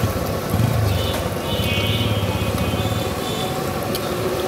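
Potato chops deep-frying in a large karai of hot oil, a steady sizzle, while a motor vehicle's engine hums past in the street for a couple of seconds. A metal spatula clicks against the wok near the end.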